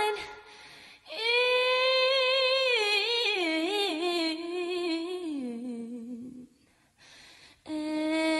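A woman singing alone without accompaniment: one long held note that wavers in ornaments and falls in steps to a low note. After a short pause a new note starts near the end.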